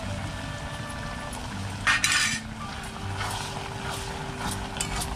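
Metal spatula stirring and scraping curry in a steel wok, with one loud scrape about two seconds in and a few clinks of metal on the pan.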